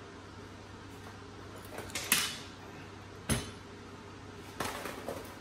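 Glued-up walnut cutting-board blank being released and lifted out of bar clamps. There is a loud scrape and clunk about two seconds in, a sharp knock a second later, and a smaller rattle of wood and clamp parts near the end, over a steady low hum.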